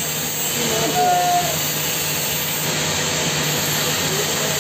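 Steady loud hiss with a low hum underneath, like machinery or a blower running. It does not change when the welding arc is struck on the pipe joint.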